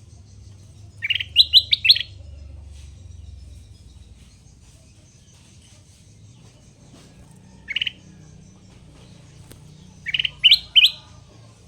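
A caged kutilang emas, a bulbul, singing: a quick phrase of four short notes about a second in, a single note about two-thirds of the way through, and another four-note phrase near the end.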